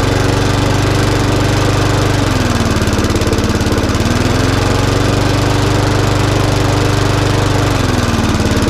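The Briggs & Stratton single-cylinder engine of a Mountfield SP470 lawnmower is running, its revs going up when the red engine-brake lever is pulled in and falling back when it is let out. The revs drop about two seconds in, rise again about four seconds in, and drop near the end. The safety microswitch isn't working, so the engine keeps running at low revs with the lever out and only speeds up with it pulled in.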